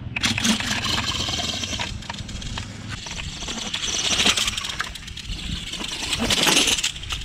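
Radio-controlled drag car fitted with an electric model-airplane motor, launching and speeding off down a concrete road. The motor noise swells a little past the middle and again near the end.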